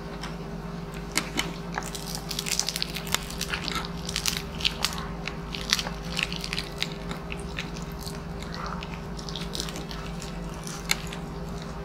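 Crunching and crackling of the crispy fried skin of a deep-fried pork knuckle (crispy pata), broken off by hand and chewed, in quick irregular snaps. A faint steady hum runs underneath.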